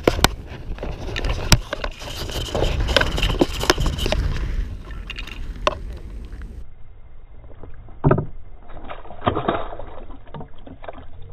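Water splashing and sloshing in the shallows as a released mullet goes back into the lake, mixed with irregular clicks and knocks, one of them sharp about eight seconds in.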